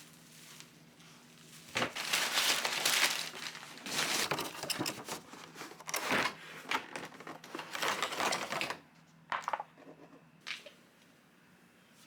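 Crinkling and rustling of packaging being handled and crumpled, dense for several seconds, then a few short rustles near the end.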